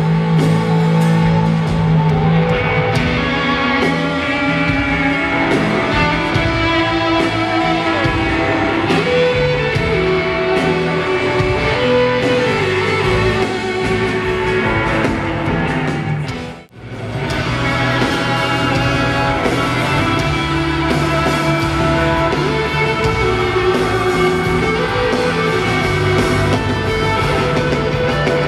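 A rock band playing live in an arena, with electric guitar and drums, heard from the audience. The music cuts out for a moment about two-thirds of the way through, then carries on.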